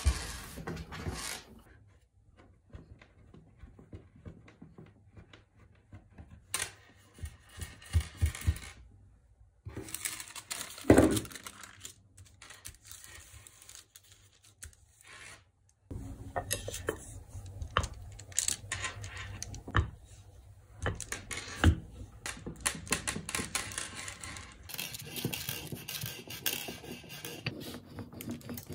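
Close-up handling sounds of clay work on a tabletop, in several short edited segments: scattered taps, knocks and rustles, with one louder thump about a third of the way in. Near the end a wooden rolling pin rolls air-dry clay flat on baking paper, with steady rustling of the paper.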